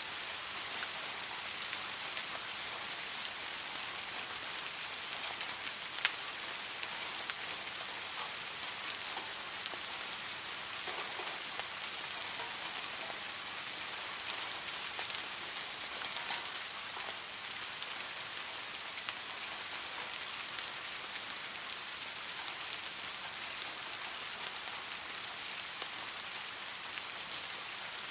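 Steady rain falling: an even hiss with scattered sharper drop ticks, one louder tick about six seconds in.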